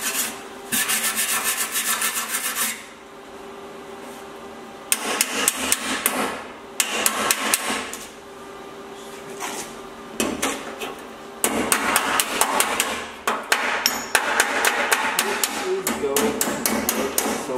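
Sheet-metal edge of a car door frame being scrubbed with a wire brush, then struck in quick runs of light metallic hammer taps that bring the welded-in repair panel into line with the frame. The sound comes in bursts with short pauses between, and the densest tapping is near the end.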